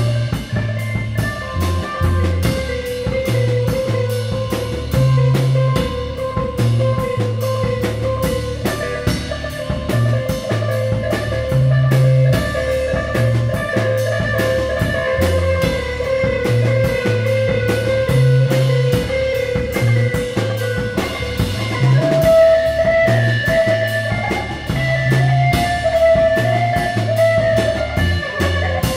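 Instrumental heavy space-rock jam: electric guitar holding long notes over a bass line and a steady drum-kit beat. About three-quarters of the way through, the guitar line steps up in pitch.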